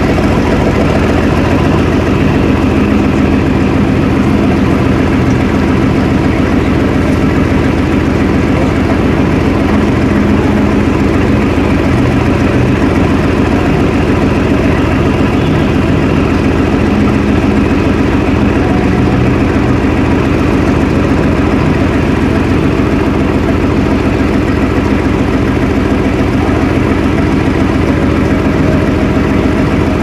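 Supercar engine idling loud and steady, its exhaust note holding one even pitch.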